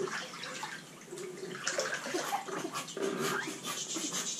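Bath water sloshing and splashing in a full bathtub as a newborn baby is moved through it, with a few brief voice sounds.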